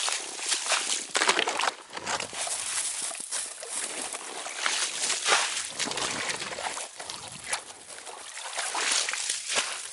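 Ice slush and water sloshing and dripping as a long-handled scoop skims ice chips out of a freshly cut hole in lake ice, in a series of irregular scoops.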